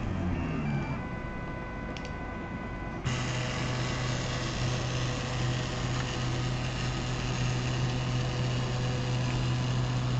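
Micromake delta 3D printer's stepper motors driving the carriages during auto calibration: a few short whirring moves in the first second or so. From about three seconds in, a sudden steady mechanical hum with a hiss as the carriages run along the linear rails. The owner puts the noise down to the balls inside the linear bearings, which need oil.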